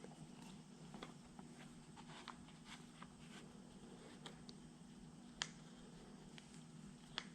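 Faint clicks and light metal taps from a bolt and mounting bracket being fitted by hand, with two sharper clicks, one about five seconds in and one near the end, over a low steady hum.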